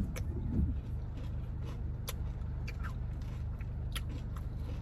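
Steady low hum of a car engine heard inside the cabin, with a few short clicks and small mouth sounds from someone eating.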